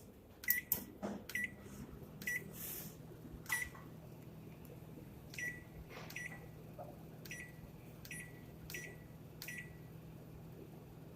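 Panasonic microwave oven's control panel giving short beeps as its keys are pressed, about a dozen at uneven spacing. About a second and a half in, the oven starts running with a steady low hum.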